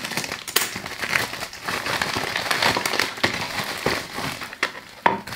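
Plastic mailer bag crinkling and crackling irregularly as it is pulled open and handled by hand.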